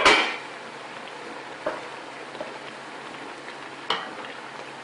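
Tomatoes and peppers cooking down in oil on the stove: a steady sizzling, bubbling hiss with a few small pops. A sharp clatter right at the start, likely the pot lid being handled.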